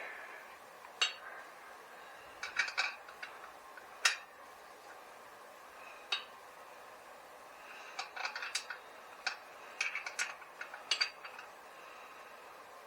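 Hand tools clinking on metal as the engine mount bolts are tightened down: scattered sharp metallic clicks, some single and some in short quick clusters.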